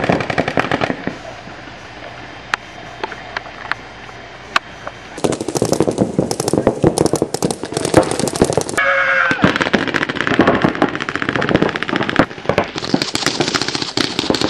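Paintball markers firing: a few single pops in the first seconds, then rapid strings of many shots a second from about five seconds in.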